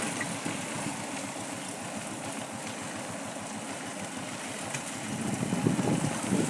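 Motorcycle engine running at idle, getting louder near the end.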